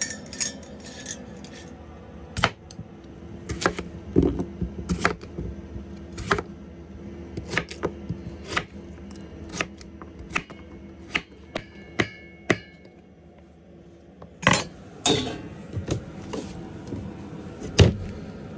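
Chef's knife chopping potatoes on a wooden cutting board: sharp, irregular knocks of the blade hitting the board. Near the end a steel pan clatters onto a camp stove.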